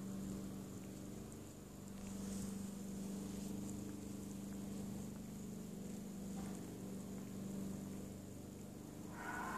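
A steady low hum, with a few faint soft clicks over it.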